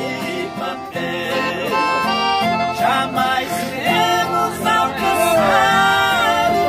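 Live sertanejo music: two piano accordions and two acoustic guitars playing while men sing the melody.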